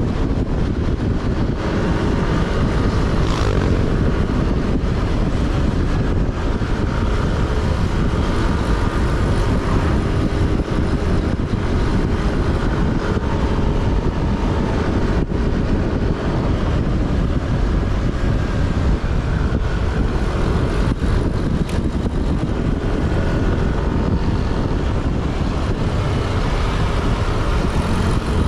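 Steady engine and road noise of a moving vehicle, with the engine's pitch drifting slightly up and down.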